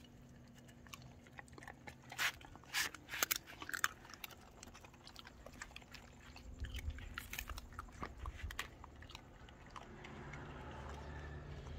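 Two dogs eating rice and bone scraps off paving: faint crunching and chewing with many sharp clicks, densest in the first few seconds. A low rumble rises near the end.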